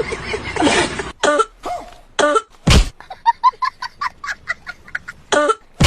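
A person coughing in an odd, comical way: a few harsh separate coughs, then a quick run of short, pitched cough sounds at about five a second, and one more cough near the end.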